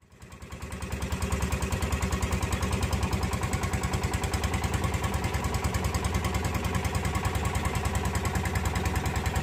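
Small fishing boat's engine running steadily under way, fading in over the first second, with a rapid, even pulsing beat.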